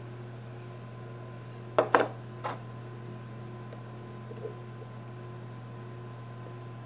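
Three quick plastic knocks about two seconds in as a small plastic cup and a liquid laundry detergent bottle are handled while detergent is poured back into the bottle, over a steady low hum.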